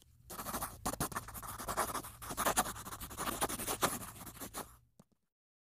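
Pencil scratching across paper in a quick run of sketching strokes, which stops suddenly about five seconds in.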